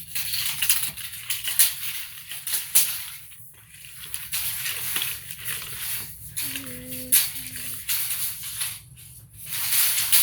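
A JobSmart 33-foot steel tape measure being handled, its blade worked in and out of the case: a run of sharp clicks and rattles.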